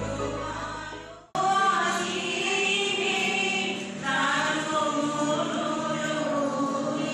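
A group of women singing together to harmonium accompaniment, the harmonium holding a steady low note under the voices. The singing starts abruptly about a second in, as a fading instrumental track cuts off.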